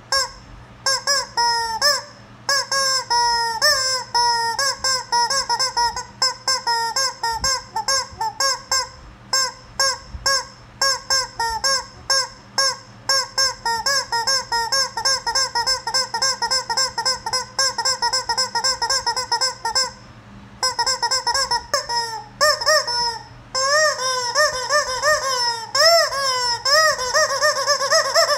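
Rubber chicken squeeze toy squawking again and again as it is squeezed, in quick runs of several squawks a second. There is a short break about twenty seconds in, then longer, drawn-out squawks near the end.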